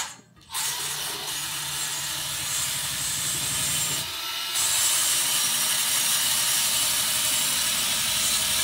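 Power tool spinning an abrasive wheel brush against the end of a steel exhaust pipe, scrubbing off burrs and old exhaust paste. It is a steady grinding, rubbing whine, and it grows a little louder about four seconds in.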